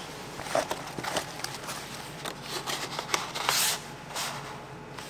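Cardboard egg-carton sleeves and molded-pulp egg cartons being handled on a steel table: light scrapes, clicks and paper rustling, with a longer rustle about three and a half seconds in.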